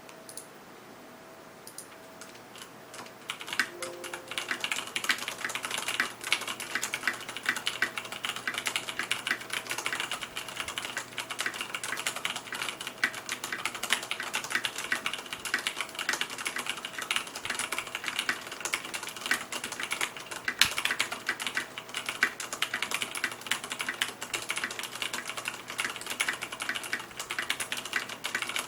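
Typing on an ikbc KD87 mechanical keyboard with Cherry MX Brown tactile switches: a fast, continuous stream of key clicks that starts about three seconds in.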